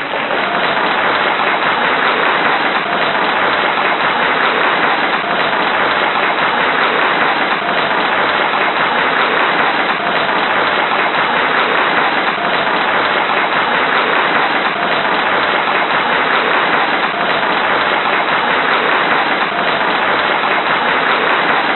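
Large crowd applauding enthusiastically: dense, steady clapping with no let-up.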